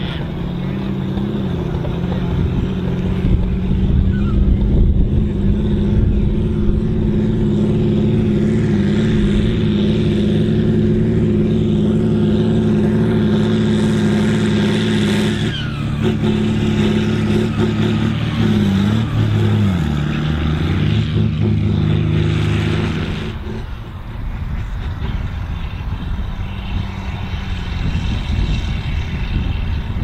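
John Deere 4240's six-cylinder turbo diesel engine working hard under load, pulling a four-furrow plough, with a steady drone. The drone breaks off abruptly about two-thirds of the way through and gives way to a rougher, noisier engine sound.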